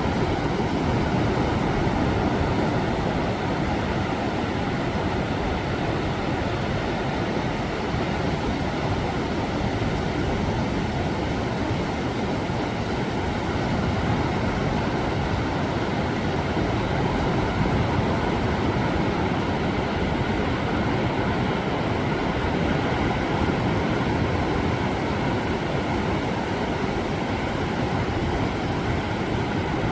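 Ocean surf breaking continuously, a steady, unbroken rush of noise with no distinct single wave crashes.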